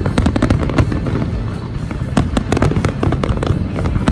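New Year's Eve fireworks display going off in rapid succession: a dense string of bangs and crackles over a continuous low rumble, with music playing underneath.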